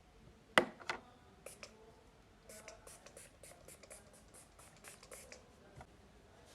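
A sharp click about half a second in, then a run of light ticks and scratching sounds, like small objects being handled close to the microphone.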